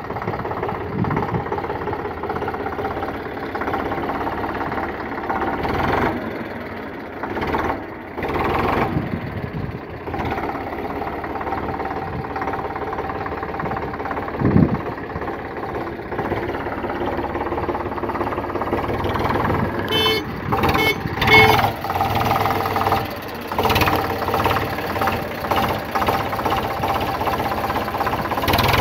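Eicher 485 tractor's three-cylinder diesel engine running steadily at low revs as the tractor is driven slowly over soft ground, with a few short knocks and rattles.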